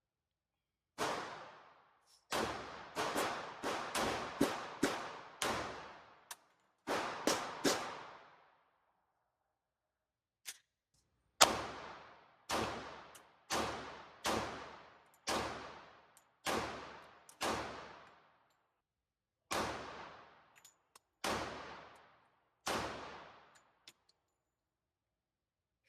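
Glock 41 Gen 4 pistol firing .45 ACP, each shot trailing off in a long echo. A quick string of about a dozen shots, a pause of a few seconds, then a second string of about fifteen shots roughly half a second to a second apart.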